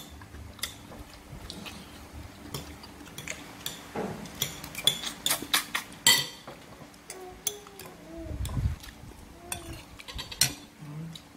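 Metal spoon and fork clinking and scraping against ceramic plates and bowls while eating, in irregular taps, the loudest about six seconds in.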